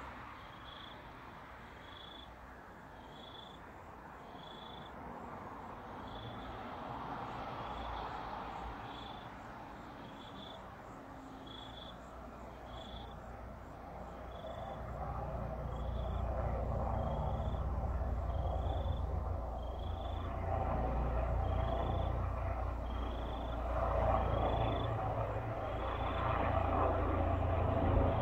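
AgustaWestland AW139 twin-turbine helicopter approaching. Its low rotor and engine rumble swells in about halfway through and keeps getting louder. A short high chirp repeats about once a second throughout.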